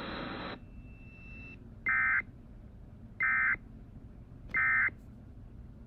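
Emergency Alert System end-of-message data tones: three short, harsh electronic bursts of the SAME digital code, each about a third of a second long and about 1.3 s apart, marking the end of the alert. A hiss cuts off about half a second in, before the first burst.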